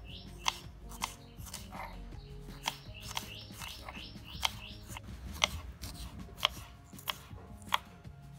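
Knife slicing through winged beans onto a wooden cutting board: about nine sharp taps of the blade on the board, unevenly spaced.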